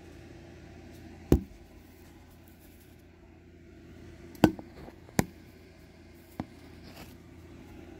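Four sharp knocks and taps from phones being handled close to the microphone, the loudest about a second in and about four and a half seconds in, over a steady low hum.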